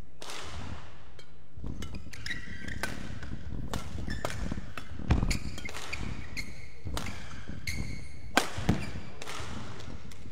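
A badminton rally: rackets strike the shuttlecock again and again, with footsteps and short shoe squeaks on the court mat. The hardest hits come about five seconds in and twice in quick succession later on.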